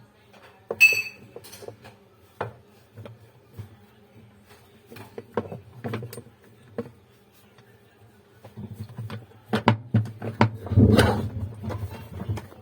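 Scattered clicks and knocks of parts being handled, with a brief high squeak about a second in. From about two-thirds of the way through there is a low steady hum under denser knocking.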